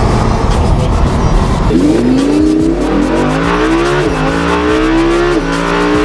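Lamborghini Huracán's naturally aspirated V10 accelerating hard, heard from inside the cabin. After a rough, pitchless rush of engine noise for the first couple of seconds, the engine note climbs steadily in pitch and drops sharply at each upshift, three shifts a little over a second apart.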